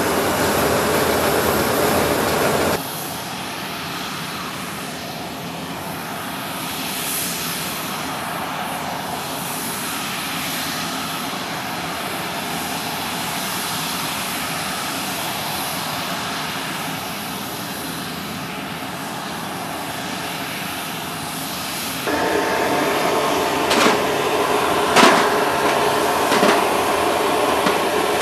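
Steady aircraft engine noise on a military flight line, dropping suddenly in level about three seconds in and running on evenly. In the last few seconds a louder steady hum with several sharp metallic clanks, inside the C-17's cargo hold.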